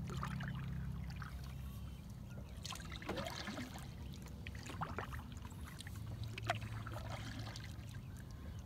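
Kayak paddle strokes in calm lake water, with water trickling and dripping off the blade and a few small splashes as the kayak is turned.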